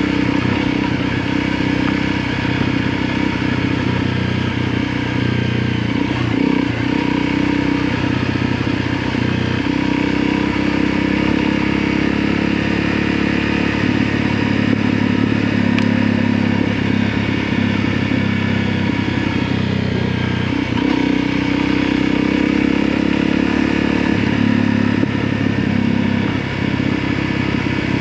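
A long coal train rolling past a level crossing: a steady, loud mix of rumbling and clattering wagons with an engine drone underneath, unbroken throughout, its pitch shifting a little a few times.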